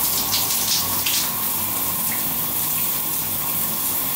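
Overhead rain shower head running in a tiled shower stall: a steady spray of water.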